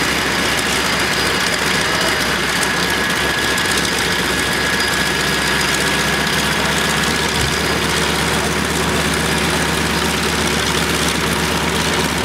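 Grumman G-164 Ag Cat biplane's engine running steadily at idle, its pitch shifting slightly a couple of times midway.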